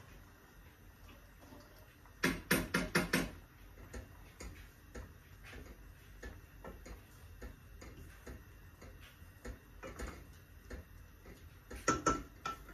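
Wooden spoon stirring pasta and knocking against cookware: a quick run of about six knocks a couple of seconds in, another short cluster near the end, and light clicks of stirring in between.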